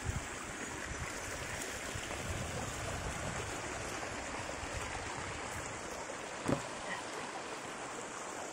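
Creek water running steadily over rocks, an even rushing noise. A brief low thump comes right at the start and another about six and a half seconds in.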